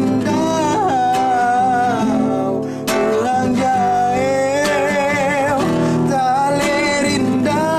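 A man singing a Kerinci regional song in long held, wavering notes, accompanied by a strummed acoustic guitar.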